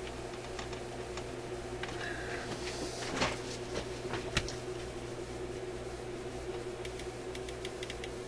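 Small clicks and knocks from a record player's tone arm, headshell and cartridge being handled and twisted by hand. The loudest knock comes about three seconds in and a quick run of light ticks near the end, all over a steady low hum.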